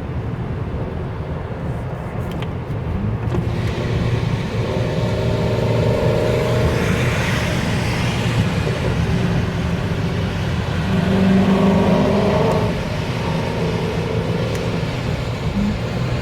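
Shelby GT350R's flat-plane-crank 5.2-litre V8 exhaust under a hard highway pull, building in loudness a few seconds in and peaking past the middle before dropping back near the end. A hiss joins in from about three and a half seconds in.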